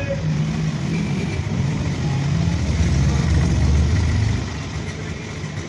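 A motor vehicle's engine running close by as a steady low rumble, growing a little louder, then easing off about four seconds in.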